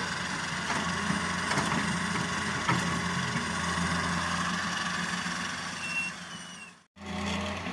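Fiat-Hitachi wheeled excavator at work loading soil into a dump truck, its diesel engine running steadily, with a couple of sharp knocks in the first three seconds. The sound drops out abruptly for a moment near the end.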